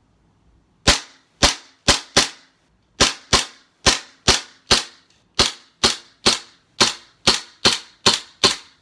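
A KWA MK2 1911 gas blowback airsoft pistol, running on propane, firing a string of about seventeen sharp shots at an uneven pace of roughly two a second, beginning about a second in. Each shot has a short decaying tail. The pistol is warm and cycling smoothly.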